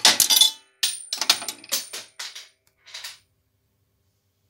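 A coin released in a TUS Praha coin payphone's mechanism as the handset is hung up: a loud metallic clack, then the coin clattering down the galvanised chute into the metal return tray, rattling several times with a high ringing as it settles, over about three seconds.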